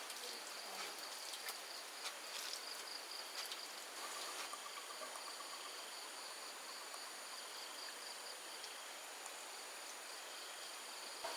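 Steady high-pitched insect chirring in the countryside, with a short rapid trill about four seconds in and a few faint clicks.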